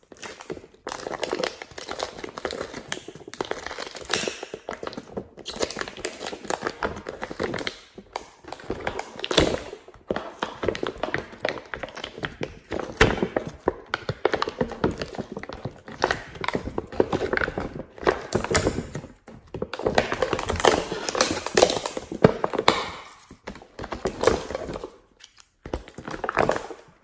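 Fingers pressing and poking glossy slime in the wells of a plastic palette tray: a run of sticky crackling clicks and small squelches, broken by short gaps a few times.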